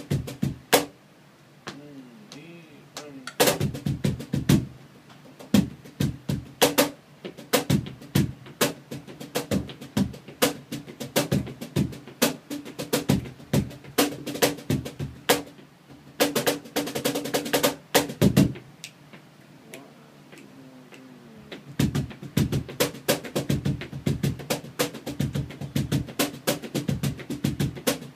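Synco hand-made cajon played solo with bare hands: sharp slaps and deeper bass strokes on the wooden box's front panel in fast, flamenco-style rhythmic patterns, broken by short pauses. A dense, rapid roll comes a little past halfway, then a sparser, quieter stretch before the playing picks up again.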